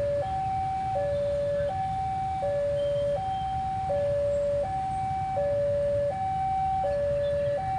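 Railway level-crossing alarm sounding a steady two-tone hi-lo warning, each tone held about three-quarters of a second, signalling an approaching train. A low rumble of road traffic runs underneath.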